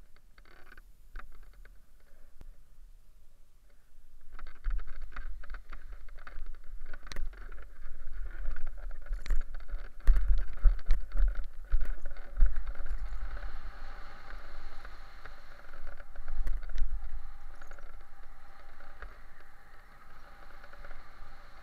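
Wind buffeting the microphone of a helmet-mounted camera during a paraglider launch and takeoff: an uneven low rumble that comes in about four seconds in, is strongest partway through, and settles into a steadier airflow hiss once airborne. A few light clicks and rustles come before it.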